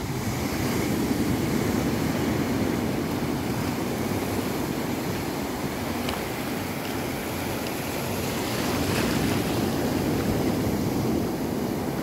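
Ocean surf breaking and washing up a sandy beach in a steady rush that swells about a second in and again near the end.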